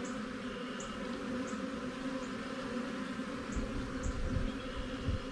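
Honeybees buzzing in a steady hum around an open hive, with low rumbling from about three and a half seconds in.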